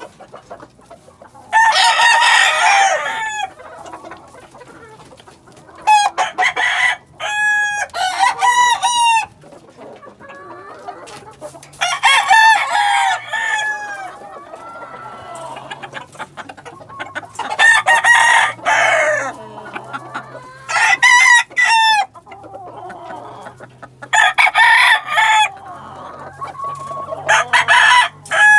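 Caged roosters crowing one after another, about eight crows spaced every three to four seconds, with clucking in the quieter stretches between.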